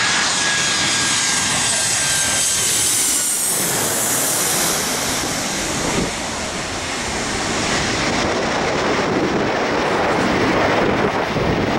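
Boeing 737's twin turbofan jet engines on landing approach, passing low overhead. A high engine whine falls in pitch as it goes over, over a steady jet roar that carries on as it descends toward the runway.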